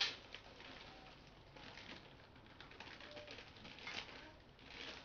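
Plastic snack wrappers crinkling and crackling as a small packet is torn open and handled, with a louder crackle at the start and again about four seconds in.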